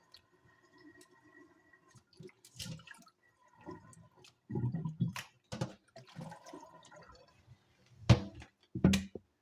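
Knife cutting raw chicken breast into chunks on a cutting board: irregular soft knocks and thuds, the two loudest near the end, with water dripping.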